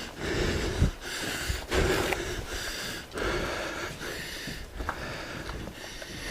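A person breathing heavily and close up, three long breaths about a second and a half apart, with a few light clicks between them.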